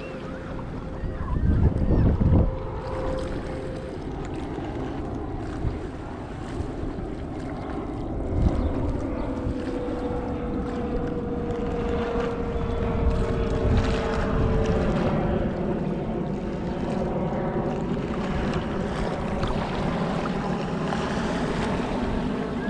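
Wind buffeting the microphone over small waves lapping at a sandy shoreline, with a few louder gusts and a faint distant engine drone.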